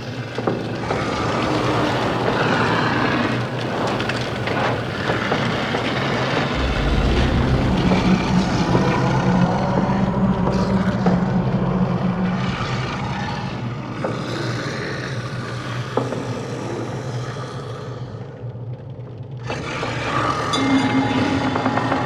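Dense, layered horror sound-design ambience: a steady low drone under a shifting mix of noisy textures, with a deep rumble swelling in about six seconds in and the high end briefly dropping away near the end.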